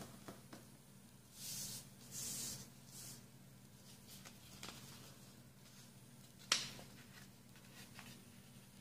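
A sheet of paper being folded into a paper airplane by hand: two brief swishes of hands sliding along the paper about a second and a half in, soft rustles and ticks, and one sharp snap about six and a half seconds in, over a faint low hum.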